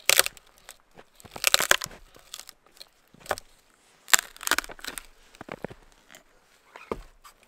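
Dead branches cracking and snapping as they are wrenched by hand off a fallen dead tree, in a string of sharp, irregular cracks and crunches. The loudest come about a second and a half in and again around four seconds.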